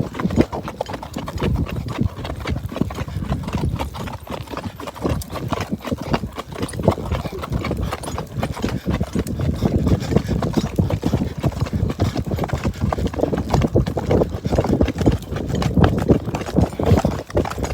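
Marwari horse's hooves striking the ground in a steady run of clip-clop hoofbeats.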